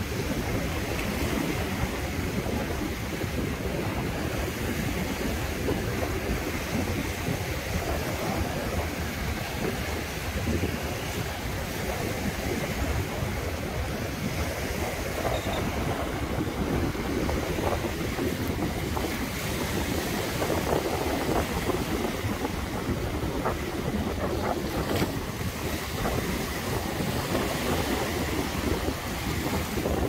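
Sea surf washing onto the beach, with wind buffeting the microphone, as a steady, churning noise.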